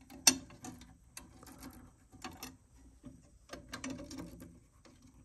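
Small socket head cap screws being fitted and turned in to hold on the brushed aluminium front panel of a tube amplifier chassis: irregular small metallic clicks and ticks, the sharpest a fraction of a second in, with a few short clusters of clicking later on.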